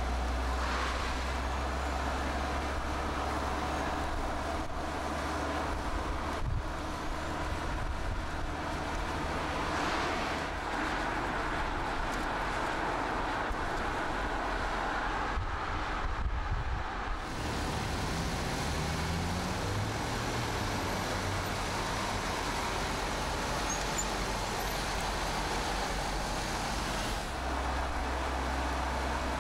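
Car driving on a road: steady tyre and engine noise with a low rumble, dipping briefly around the middle, after which an engine note rises for a moment.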